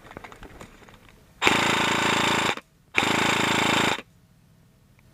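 Airsoft rifle firing two full-auto bursts of about a second each, with a short pause between them.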